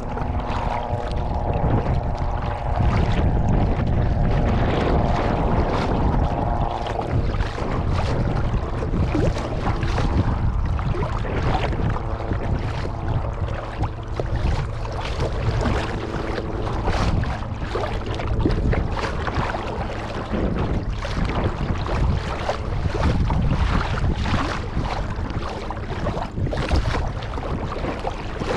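Kayak paddling: paddle splashes and water sloshing against the hull, with wind buffeting the microphone. A faint steady hum lies under it and is strongest in the first several seconds.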